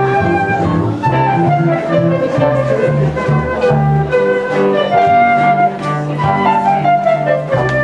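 Small live ensemble playing a waltz: a flute carries the melody over violins, cello, keyboard, trombone and upright bass.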